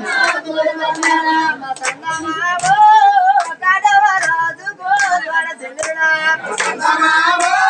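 A high-pitched voice singing a drawn-out Golla chaduvu folk-narrative chant, with sharp percussive strikes keeping time about once or twice a second.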